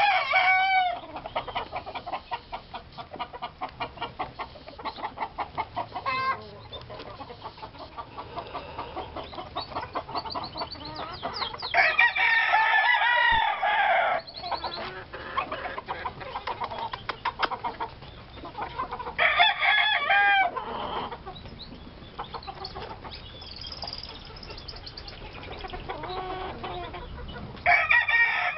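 Lacy Roundhead chickens: roosters crowing several times, one crow fading about a second in, others near the middle and one starting near the end, with quick steady clucking, about four or five a second, in between.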